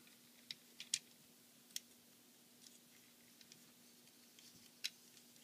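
Sparse, faint clicks and taps of hard plastic toy parts being handled, four or so sharp ticks with the loudest about a second in, over a faint steady low hum.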